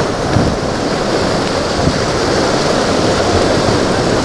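Steady rush of breaking waves and surf in a rough inlet, with wind buffeting the microphone.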